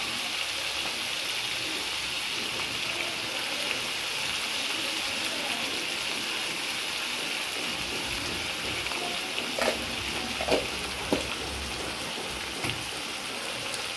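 Mutton chops frying in oil on an iron tawa: a steady sizzle. There are a few short faint knocks about ten seconds in.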